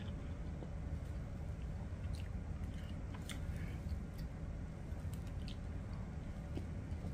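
A person chewing a spicy chicken sandwich with scattered small mouth clicks, and biting into the long bun again near the end. A steady low hum runs underneath.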